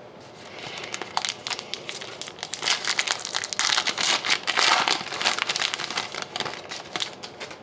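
Foil trading-card pack wrapper being crinkled and torn open by hand: an irregular run of sharp crackles, with the cards inside rustling as they are drawn out.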